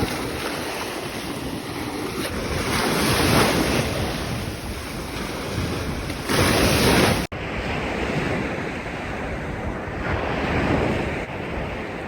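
Sea surf washing ashore, with wind buffeting the microphone and the wash surging louder now and then. It breaks off abruptly a little past seven seconds in and carries on with a duller, less hissy wash.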